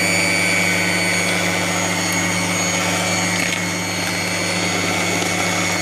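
Electric hand mixer running at a steady speed, its twin beaters whisking eggs and sugar toward a creamy batter: an even motor hum with a steady high whine.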